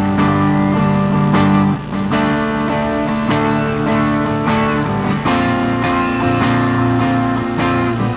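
Live rock band playing an instrumental passage through a concert PA: strummed guitars over bass with sustained chords, the chord changing about two seconds in and again about five seconds in.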